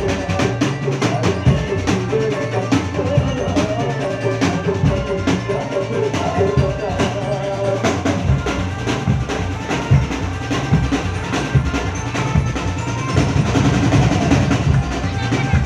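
Loud music with heavy, steady drumming over a sustained melody: the accompaniment for a jaran kencak dancing-horse performance.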